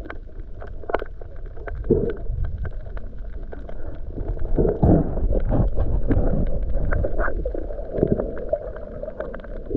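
Muffled underwater sound heard through a waterproof camera housing: low rumbling water movement with scattered small clicks and a few louder gurgling swells.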